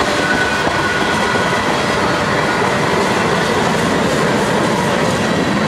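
Freight train tank cars and covered hopper cars rolling past: a steady, loud rumble of steel wheels on rail, with a faint high wheel squeal.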